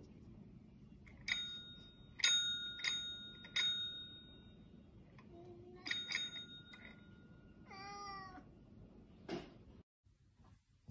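A Russian Blue cat paws a service bell: four dings in quick succession, then another a few seconds later, each one ringing on for a second or two. About eight seconds in, the cat gives one meow.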